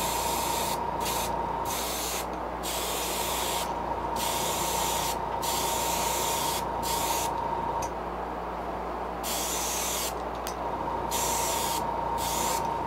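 Airbrush spraying apple-red paint onto a crankbait, a hiss that stops and starts every second or two as the trigger is let off and pressed again, over a steady high tone and low hum.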